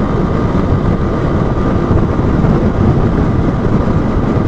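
Wind rushing over an action camera's microphone on a moving motorcycle, with the Honda Bros 160's single-cylinder engine running steadily underneath at cruising speed.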